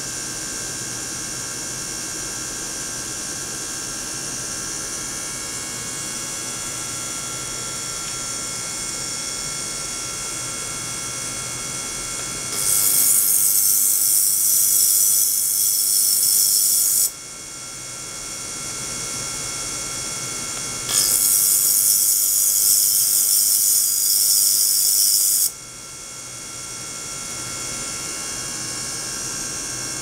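Ultrasonic test rig with a glass jar in a water bath giving a steady electrical buzz and whir, with several steady high tones. Twice, a loud high-pitched hiss starts abruptly, lasts about four and a half seconds and cuts off suddenly.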